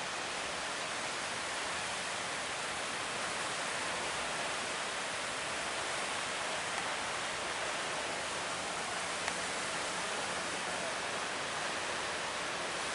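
Steady rushing hiss of wind and water at sea aboard a boat rolling in big waves, with no engine note or distinct splashes standing out.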